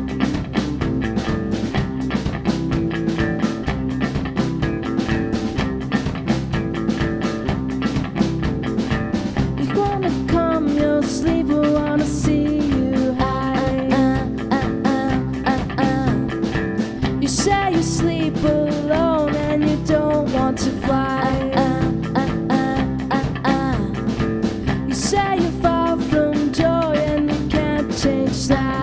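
A band playing a blues-tinged rock song live, over a steady drum beat. About ten seconds in, a lead melody with bends and slides comes in over the band.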